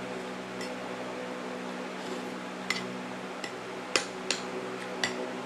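Spoon and fork clinking lightly against a plate of noodles and rice while eating, a handful of short clinks with the loudest about four seconds in, over a steady background hum.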